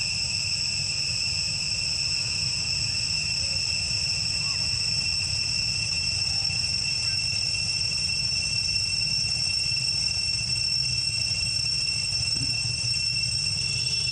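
Steady insect chorus: a high-pitched drone held on several even pitches without a break, over a low rumble.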